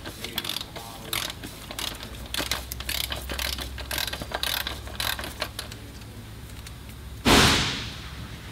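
Ratchet wrench clicking in repeated strokes as it unscrews the lube filter housing lid, stopping about five and a half seconds in. A single sudden loud burst with a short fading tail follows near the end.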